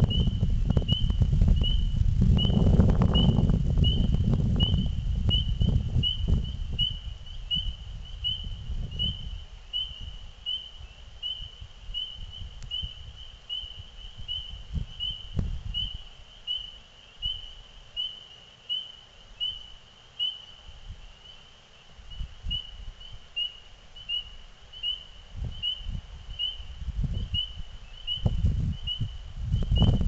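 A frog calling steadily: a short, high, slightly rising peep repeated about one and a half times a second. A low rumble of noise, louder than the calls, covers the first several seconds and comes back near the end, with a few soft thumps in between.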